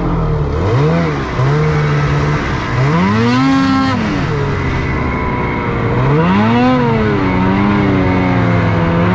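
Snowmobile engine running under throttle, its pitch swinging up and back down three times as the throttle is opened and eased off.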